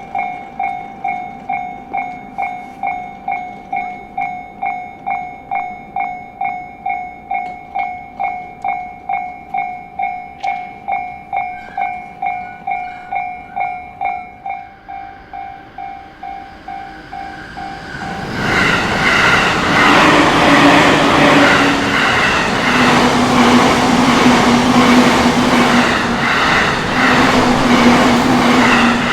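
Japanese level-crossing warning bell ringing about twice a second, then about eighteen seconds in a JR Tokaido Main Line train passes through the crossing, its wheel and running noise loud enough to bury the bell.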